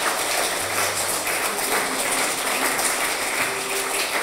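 Wedding guests applauding, a dense steady clapping.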